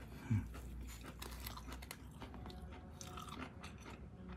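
A person chewing a mouthful of shellfish meat and rice close to the microphone: many faint, soft clicks of the mouth, with a short low 'mm' about a third of a second in.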